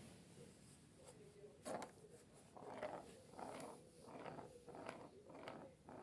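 Soft, rhythmic mouth sounds from a cat, about two or three strokes a second, starting about two seconds in.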